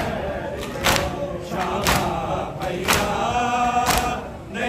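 A crowd of men beating their chests in unison with open hands during matam, one loud slap about every second, over male voices chanting a mourning refrain.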